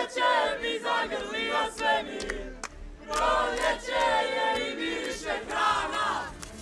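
A team of men and women chanting and cheering together in celebration of a win, with their voices in loud, overlapping bursts.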